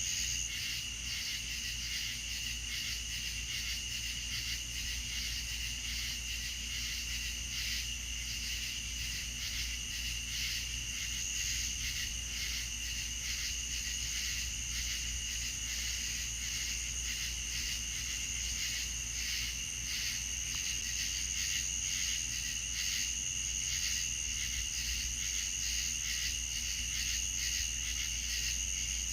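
Night chorus of crickets and other insects: a steady, high-pitched pulsing trill that keeps on without a break.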